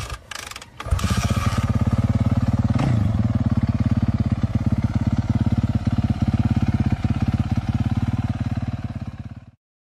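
Motorcycle engine: a few sharp clicks, then it catches about a second in and runs with rapid, even firing pulses. It briefly changes pitch near three seconds and cuts off suddenly near the end.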